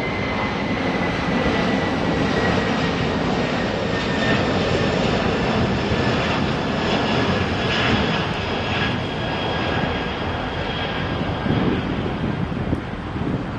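Boeing 747 freighter's four jet engines at take-off power: a steady, loud rush of noise with a high whine slowly falling in pitch.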